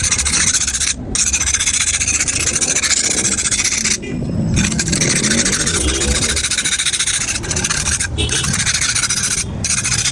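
Mirror glass being ground with an abrasive: steady rasping rubbing, broken by brief pauses about one, four, eight and nine and a half seconds in.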